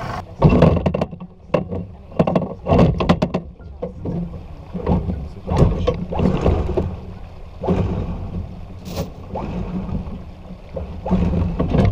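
Anchor windlass hauling in the chain and anchor, with repeated irregular metallic clanks and knocks over a steady low hum.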